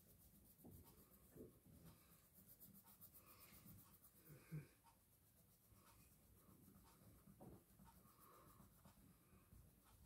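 Faint scratching of a golden crayon colouring in on paper, with one soft bump a little before halfway through.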